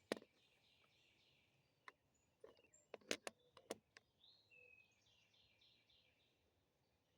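Faint clicks and knocks of fence pliers gripping and turning on a stripped screw head, with faint birdsong chirping in the background.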